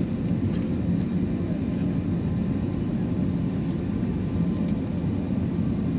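Steady low rumble inside an Airbus A321 cabin on the ground before takeoff, with faint steady whines above it.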